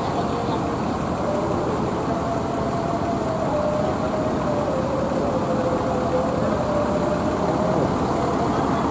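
Bus engine idling steadily, with a thin tone that drifts slowly up and down in pitch.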